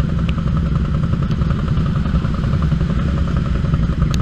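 Side-by-side UTV engine running steadily under way on a trail, with a few light ticks over it.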